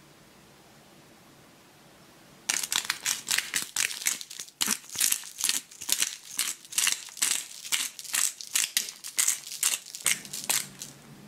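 Himalayan pink rock salt being ground from a bottle grinder: a quick run of gritty crunching twists, about two or three a second, starting a couple of seconds in and stopping near the end.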